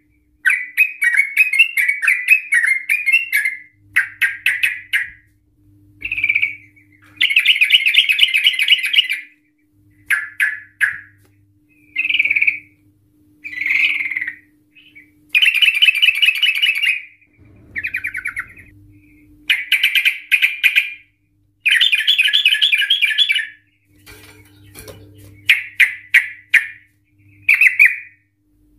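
Yellow-vented bulbul (trucukan) singing loudly in repeated bursts of rapid, chattering phrases, each a second or two long, with short pauses between them.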